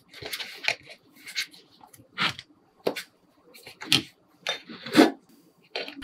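Scattered short taps, knocks and rustles of a plastic square cutter and soft modelling clay being handled and pressed on a tabletop, the loudest about five seconds in.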